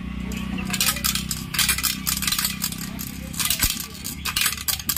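A loose object lodged inside a removed Honda Shine BS6 motorcycle silencer, rattling and clinking against the metal in quick, irregular hits as the silencer is handled. This loose object is the cause of the silencer's rattling noise. A low steady hum runs underneath.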